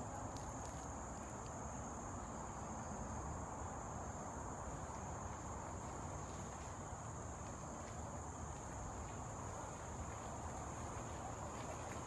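Steady high-pitched drone of forest insects, unbroken throughout, over a low, even rushing noise.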